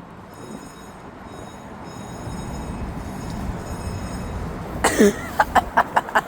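Low rumble of vehicle noise growing steadily louder, then a brief loud sound falling sharply in pitch about five seconds in, followed by a quick run of clicks, about five a second.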